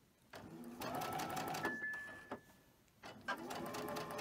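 Domestic sewing machine stitching a seam in quick bursts of needle strokes, running on a nearly empty bobbin. It runs for about two seconds, pauses, and starts again near the end. A brief high steady tone sounds as the first run stops.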